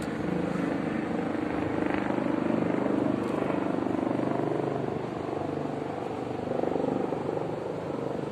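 A motor vehicle engine running nearby, a steady hum that swells about two to three seconds in and again near the seventh second.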